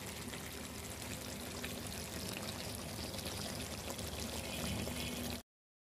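Beef liver bhuna sizzling in a karahi: a steady hiss with fine crackles, cutting off suddenly near the end.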